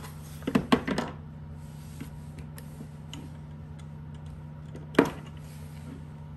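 Sharp clicks and clinks of hand tools being handled in a workshop: a quick cluster about half a second to a second in and a single louder click about five seconds in, over a steady low hum.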